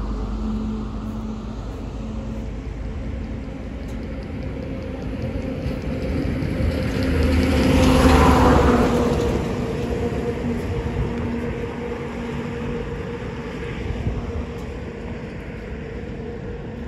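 Car running with a steady low engine and road rumble, swelling to a louder rush about halfway through and then easing back.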